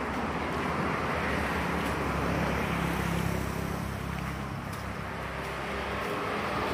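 Steady rumble of road traffic going by, with a low hum and no clear individual events.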